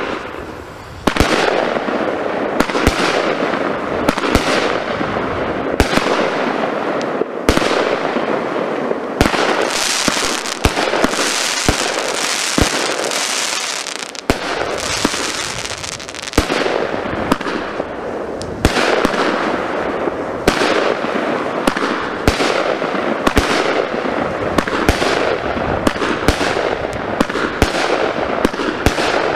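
Weco Python 25-shot fireworks cake firing: shot after shot, roughly one every one to two seconds, with constant crackling and hissing between them.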